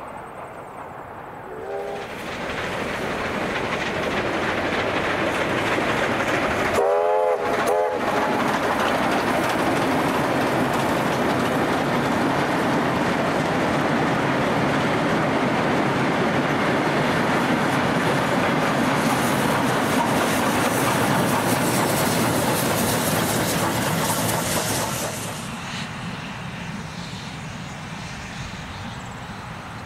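A train passing close by, its wheels clattering over the rail joints, building up about two seconds in and fading away near the end. It sounds two short warning blasts, a brief one early and a louder one about seven seconds in.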